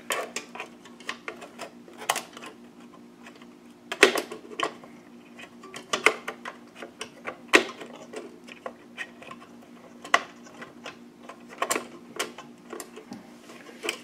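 A PCIe expansion card and its metal bracket clicking and knocking against the PC case and the slot as it is worked into a PCIe slot, with irregular sharp clicks every second or two, the card not yet lining up. A faint steady hum runs underneath.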